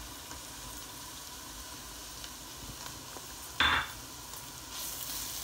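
Chopped onions and ginger-garlic paste sizzling in oil in a nonstick pan, with one short knock about three and a half seconds in. The sizzle turns louder near the end.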